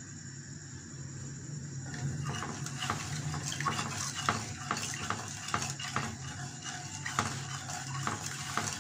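Metal spoon stirring sugar syrup in a stainless-steel pan, with frequent clinks and scrapes of the spoon against the pan and liquid swishing, over a steady low hum. The syrup is kept moving as it heats so the sugar does not catch on the bottom.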